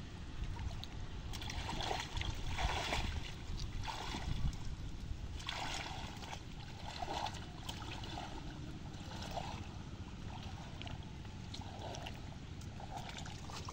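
Water sloshing and splashing unevenly as people wade and work a net and bamboo fish trap in thigh-deep floodwater, over a steady low rumble.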